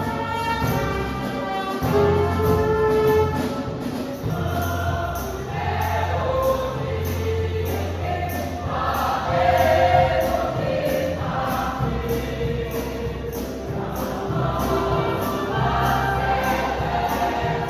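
Church choir singing a gospel hymn with orchestral accompaniment, with held chords over a steady bass line.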